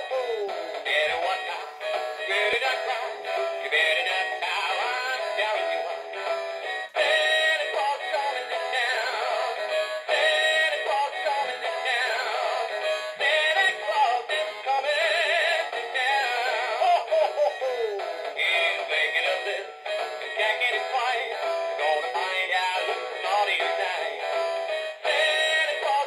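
Rock King Tommy animatronic singing bass toy playing its Christmas song through its small built-in speaker: an electronic singing voice over a jingly backing, thin and tinny with almost no bass.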